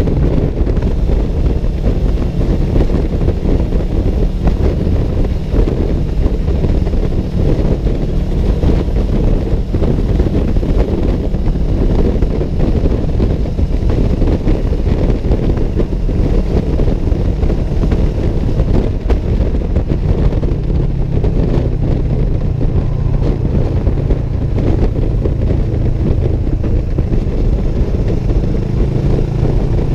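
Vehicle driving at highway speed: steady engine and road noise, with wind on the microphone. The engine note drops slightly about twenty seconds in.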